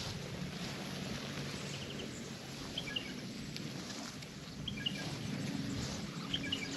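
Steady open-air background noise with a low hum underneath. A small bird gives short chirping calls three times: about three, five and six and a half seconds in.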